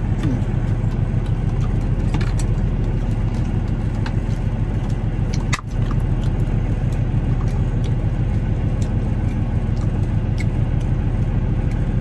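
Steady low rumble of a semi truck's engine idling, heard inside the cab, with a few light clicks. The sound drops out briefly about halfway through.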